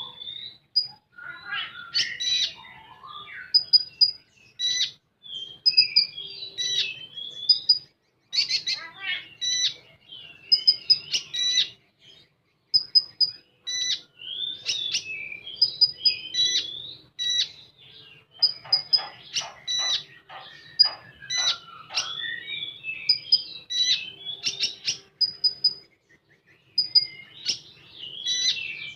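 A konin songbird singing in a fast, varied run of sharp chirps and short whistles, with a rapid trill of quick repeated notes a little past the middle. This is the bird's full, loud competition song.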